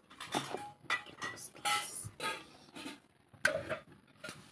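Scattered clinks and knocks of kitchen utensils and spice containers being handled, several short sharp sounds with gaps between them, some with a brief ring.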